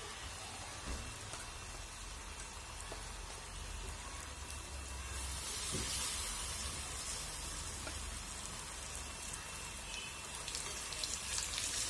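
Battered jackfruit pieces deep-frying in hot oil in an iron wok: a steady, rain-like sizzling crackle of bubbling oil.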